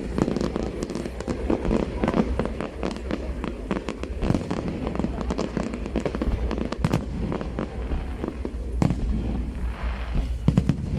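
Fireworks display: a dense, irregular string of sharp bangs and crackles over a steady low rumble.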